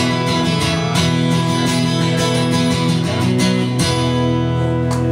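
Steel-string dreadnought acoustic guitar strummed to close out a country song, finishing on a final chord left to ring about four seconds in.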